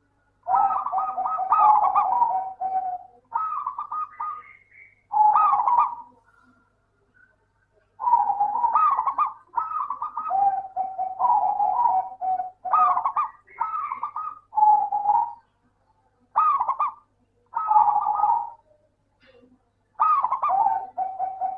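Zebra dove (perkutut) cooing: a run of phrases of quick, rolling notes, each lasting about one to four seconds, with short pauses between them and a longer pause about six seconds in.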